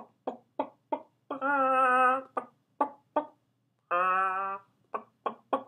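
A man imitating a hen's clucking, 'bok-bok': quick runs of about four short 'bok' syllables, each run ending in a long drawn-out call, twice, then a final run of short boks.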